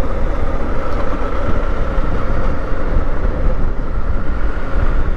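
Motorcycle running at a steady cruising pace, with constant engine and road noise and a heavy low rumble that does not change.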